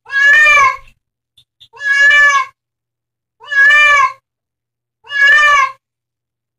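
Domestic cat giving four loud, drawn-out meows of distress, each under a second long and about a second and a half apart, as it is held in a bathtub.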